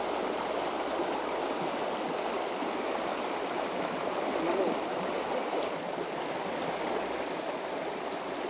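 Shallow river current flowing steadily around legs wading in waders: an even wash of running water.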